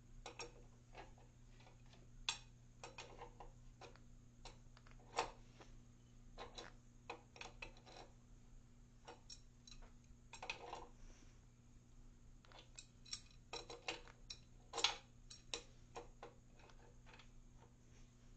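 Scattered light metallic clicks and taps of tools and a threaded drain plug being handled, irregular, with a few sharper knocks, over a steady low hum.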